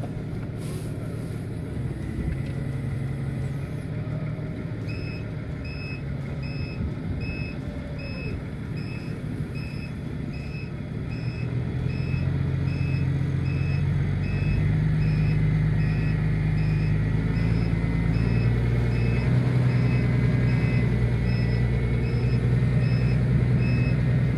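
A vehicle's reversing alarm beeping at an even, quick pace over a running engine. The beeping starts about five seconds in. The engine gets louder about halfway through as the vehicle backs up.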